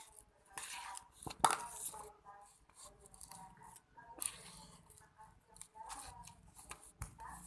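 Irregular short scraping and clicking handling noises, the loudest about one and a half seconds in.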